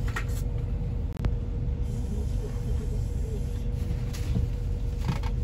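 Steady low rumble of a bus's engine and road noise heard from inside the moving bus, with a faint steady hum over it and a few light clicks.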